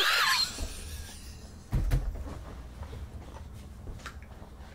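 A dull thump about two seconds in, with low rumbling and faint knocks, as a person throws himself back into a gaming chair.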